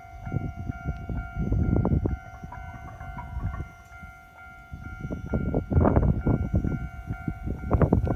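Japanese railway level-crossing alarm ringing steadily in a repeated electronic tone. Underneath it is an uneven low rumble that swells about a second in, drops away around the fourth second and builds again over the last few seconds.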